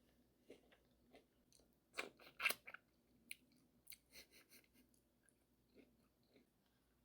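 Close-miked chewing of a crunchy taco or tostada, with a loud run of crunches about two seconds in, then softer, scattered chewing clicks.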